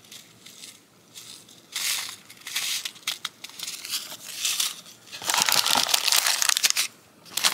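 Clear plastic packaging bag crinkling and rustling as it is handled, in a few short bursts, then a longer, louder stretch of crinkling about five seconds in.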